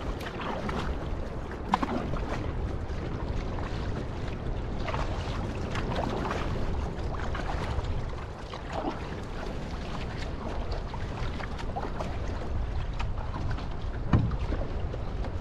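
Outrigger canoe (va'a) being paddled: water splashing and rushing along the hull, with heavy wind rumble on the microphone. Two sharper knocks, one about two seconds in and one near the end.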